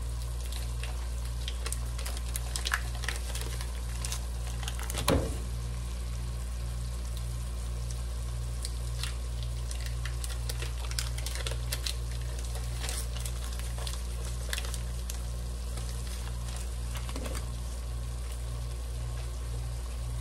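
Sliced onions and butter sizzling in a pot, with scattered crackles and pops over a steady low hum. A single louder knock comes about five seconds in.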